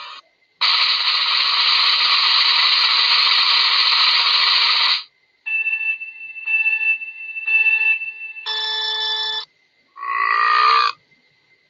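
A run of short meme sound effects: a loud, steady, hissing blast lasting about four seconds, then four beeps about a second apart like an alarm or ringtone, the last one longer, then a short wavering, gliding tone.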